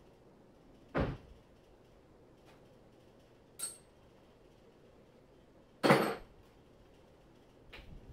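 Two solid knocks, about five seconds apart, with a sharper metallic click between them: hardtop parts and latches being handled while a Jeep's roof is taken off.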